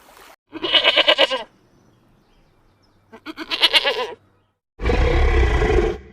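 Animal calls: two short quavering calls about two and a half seconds apart, then a louder, harsher call lasting about a second near the end.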